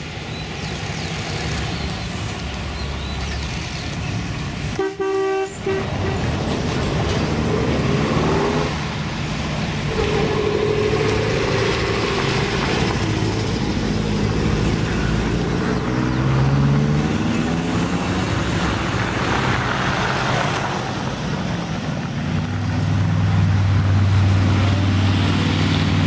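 Classic cars driving past, engines running and rising and falling in pitch, with a short car horn toot about five seconds in. Near the end an old car's engine grows louder as it approaches.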